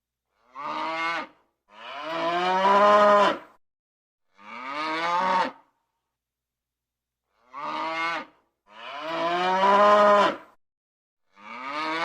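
Cow mooing: six separate moos in two matching groups of three, a short one, a long loud one, then a medium one, with dead silence between the calls.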